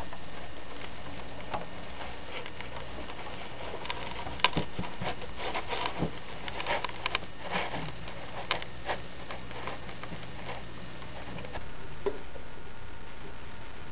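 HO scale model train cars rolling along the track, with irregular light clicks and ticks from the wheels over rail joints and turnouts, over a steady low hum.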